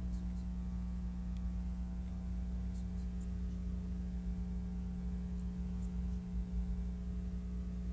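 Steady low hum with a stack of even overtones, with a few faint ticks and clicks over it.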